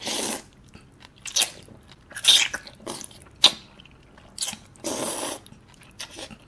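A person eating jjajangmyeon (black bean noodles) close to the microphone: a series of wet slurps and chewing smacks, with the two longest slurps at the start and about five seconds in.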